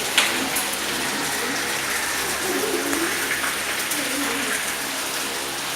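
Fish frying in hot oil in a pan, a steady sizzle, with a sharp click just after the start.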